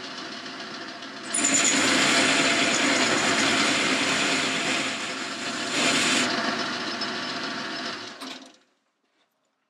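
Boxford metal-turning lathe running with a steady whine while a tool bit faces the end of a metal bar. The cutting noise comes in louder about a second in and eases off around six seconds. Near the end the lathe is switched off and runs down to silence.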